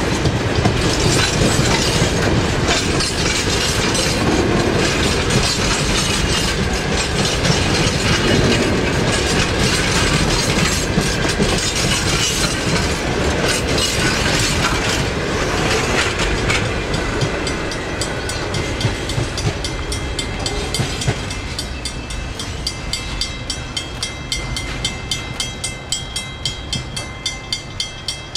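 Loaded wheat train's steel-wheeled grain hopper wagons rolling past close by, wheels clattering over the rail joints. In the second half the sound fades to evenly spaced clicks about twice a second, and a thin high wheel squeal joins as the train rounds the curve.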